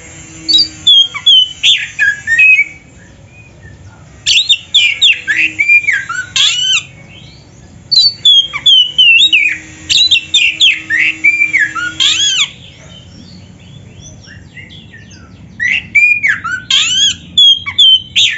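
Oriental magpie-robin (kacer) singing loudly in four bursts of rapid, sweeping whistled notes, with short pauses between them. This is the bird's full, energetic 'gacor' song.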